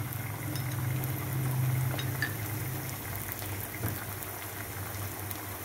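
Garlic, ginger and green chillies sizzling gently in oil in a non-stick frying pan on a low flame, with oyster sauce and dark soy sauce just added. A low steady hum runs underneath, with a couple of light ticks.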